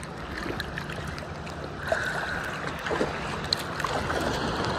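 Shallow seawater sloshing and lapping, with small splashes from swimmers close to the microphone and a steady low hum underneath.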